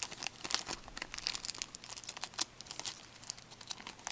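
Crinkling and tearing of a Pinnacle Mint hockey card pack's foil wrapper as it is torn open and peeled back: a fast, irregular run of crackles.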